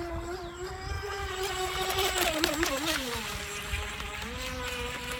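Atomik Barbwire RC racing boat's brushless electric motor whining at speed as the boat runs across the water. Its pitch wavers a couple of seconds in, then falls as the throttle eases.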